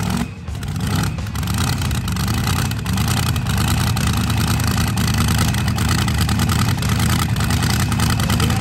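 Supercharged engine of a modified pulling tractor idling steadily, with a dense, low, rapid pulsing.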